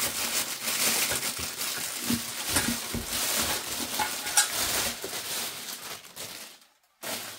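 Clear plastic wrapping crinkling and rustling as a steel lathe leg is pulled out of it inside a cardboard box, with a few light knocks and a sharper one about four seconds in. It dies away near the end.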